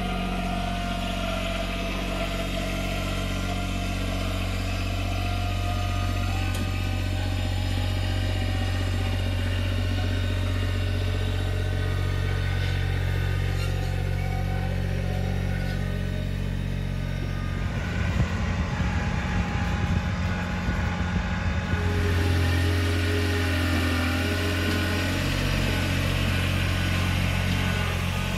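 Kubota BX compact tractor's diesel engine running steadily as it moves the dump trailer and then returns. Its sound turns rough and choppy from about eighteen to twenty-two seconds in.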